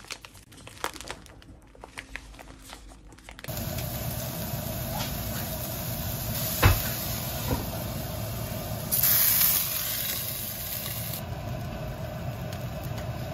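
A plastic pouch of frozen fried rice rustling faintly. Then fried rice sizzling steadily in a non-stick frying pan as it is stir-fried with a wooden spoon, with one sharp tap of the spoon on the pan. The sizzle grows louder and brighter for a couple of seconds near the end.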